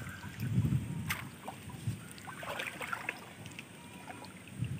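Water sloshing and splashing softly as a fishing net with floats is hauled in by hand through flooded field water, with a few light clicks and knocks.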